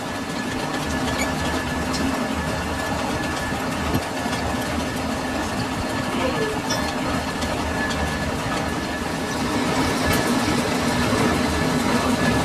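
Metal lathe running steadily: a constant machine hum with a thin, steady whine and a few light ticks.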